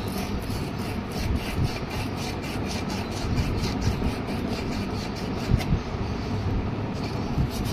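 Sandpaper rubbing back and forth in quick, even strokes on the blackened antenna cap of a microwave oven's magnetron, scouring off the carbon deposit left by arcing. The strokes pause briefly near the end.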